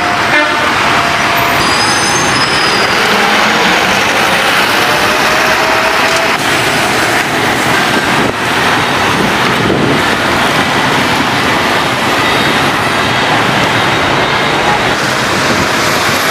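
Steady street traffic noise from motorbikes and cars running along a busy city road.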